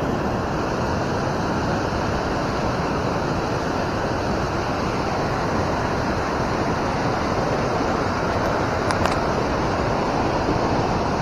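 Steady rushing of fast river current, an even unbroken wash of moving water.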